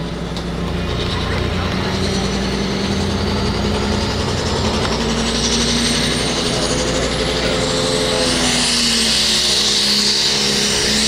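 Light limited super stock pulling tractor's turbocharged diesel engine running hard at the start of a pull, a high whine climbing slowly in pitch over it. The engine note rises and grows louder about eight seconds in as the tractor begins to move the sled.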